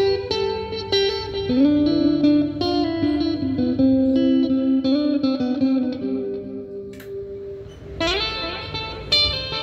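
PRS-style custom electric guitar with humbucking pickups, played through an effects pedal: a clean-toned single-note lead line with several notes gliding up in pitch, a brief lull about seven seconds in, then more notes.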